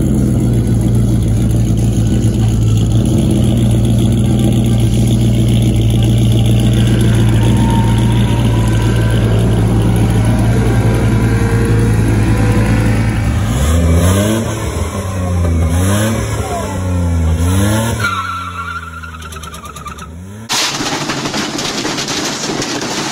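A lowered Chevrolet Silverado pickup's engine held at steady high revs, then revved up and down three times. About twenty seconds in it cuts abruptly to a loud, rattling washing machine banging away.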